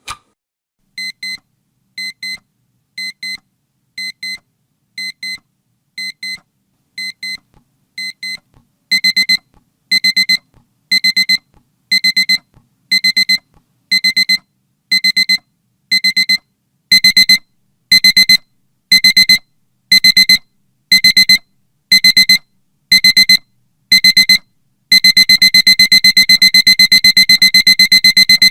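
Alarm clock beeping, sounding when the two-minute countdown ends. Short clusters of high beeps come about once a second, step louder about 9 and 17 seconds in, then give way to unbroken rapid beeping near the end.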